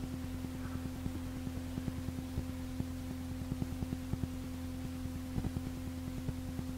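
A steady low hum made of a few held tones, with faint irregular crackling clicks over it.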